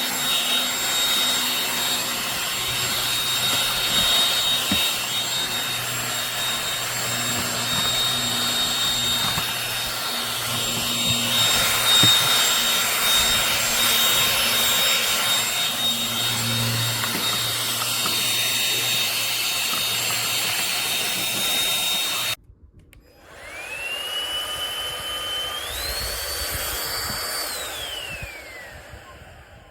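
Ljuren cordless stick vacuum running, a steady rushing hum with a constant high whine. About two-thirds of the way through it cuts off abruptly. It then spins up again with a rising motor whine that steps up to a higher pitch, winds down near the end, and starts rising once more.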